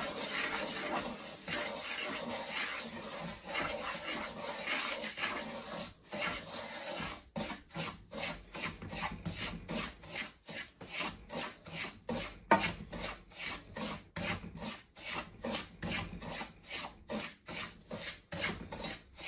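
Wooden spatula scraping and stirring semolina in ghee around a nonstick wok. It is a continuous scrape at first, then settles into regular strokes about twice a second from roughly seven seconds in.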